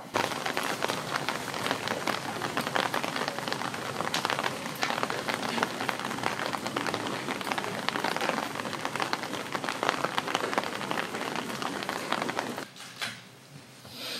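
A dense, even crackling hiss like rain on a hard surface, starting abruptly and cutting off about twelve and a half seconds in.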